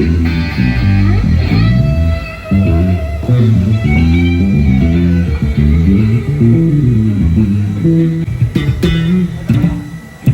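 Electric bass guitar playing a busy bassline of quick single notes moving up and down, with a few sharp percussive hits near the end.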